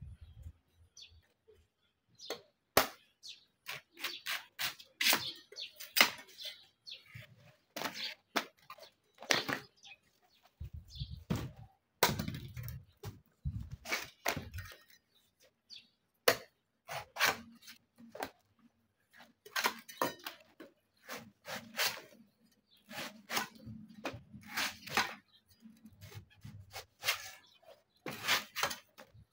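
Cleaver slicing and shaving the husk off young green coconuts on a wooden chopping block: quick runs of sharp cutting strokes with short pauses between, and a few dull thumps on the block about eleven to thirteen seconds in.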